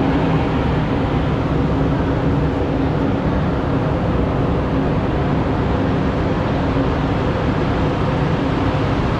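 Aerial tramway drive machinery running in its machine room: a loud, steady mechanical drone with a constant low hum under broad rumbling noise.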